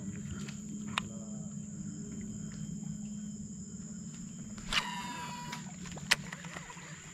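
Insects droning steadily at a high pitch over a low hum, with a sharp click about a second in, a short chirping call near the middle, and another click near the end.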